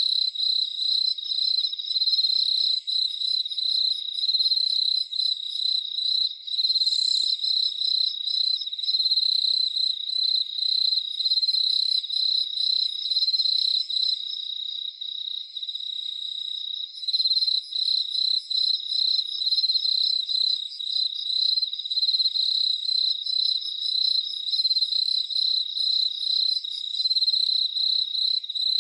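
Crickets chirping in chorus: a steady high trill with faster pulsed chirps layered over it. The upper chirping drops out for a few seconds about halfway through.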